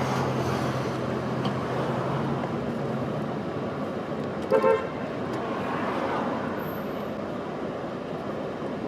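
Street traffic noise with a low steady hum, and one short car horn toot about four and a half seconds in.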